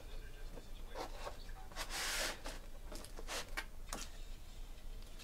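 Faint scattered clicks and small handling noises, with a brief rustle about two seconds in.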